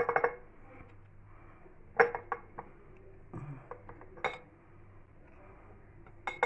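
Whole cucumbers being packed by hand into a glass jar, knocking and clinking against the glass a few times with short, sharp rings.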